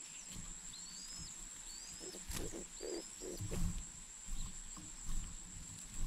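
Spotted dove squabs being fed by a parent at the nest: a run of low, rough throaty pulses about two and a half to three and a half seconds in, then a few soft thumps of movement. Faint thin chirps and a steady high whine run underneath.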